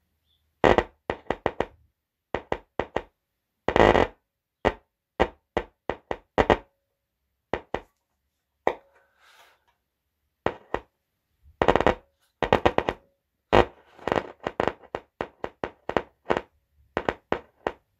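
Repaired subwoofer driver popping and crackling as battery leads are touched to its terminals again and again, in irregular runs of sharp pops. Each pop is the cone jumping under the battery's current, a sign that the voice coil works.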